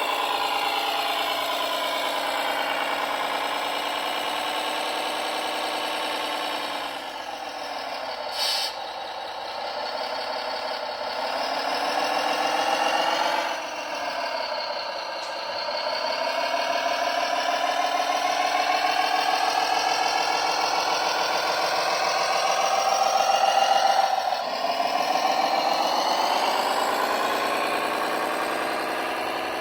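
Simulated diesel engine sound from a radio-controlled model truck or tractor's sound module, its pitch rising and falling slowly as the throttle changes, with a short click about eight and a half seconds in.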